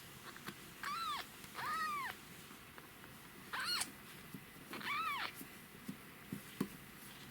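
A young kitten, still on bottle milk, mewing four times. Each call is short and high, rising and then falling in pitch.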